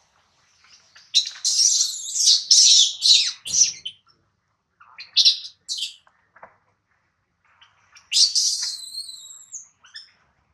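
Baby macaque crying in high-pitched squealing cries, in three bouts: a long one of about two and a half seconds, a short one around five seconds in, and a last one near the end with drawn-out notes. These are distress cries of an infant held away from its mother.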